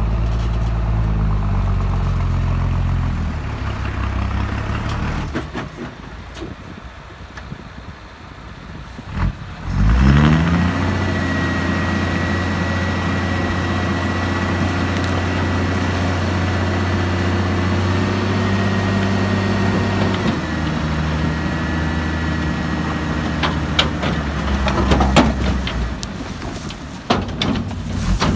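Diesel engine of a 10-wheel dump truck, idling at first, then sharply coming up to speed about a third of the way in and held there to work the hydraulic hoist as the loaded bed tips up, with a steady high whine over it. The engine note steps down about two-thirds through, and a few sharp knocks come near the end.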